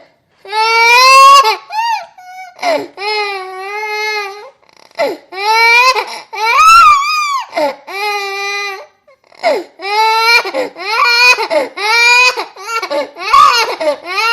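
Pitched-down recording of a baby crying, used as a sound effect: a string of loud wailing cries with short breaks for breath between them, some held on one pitch and some sliding up and down.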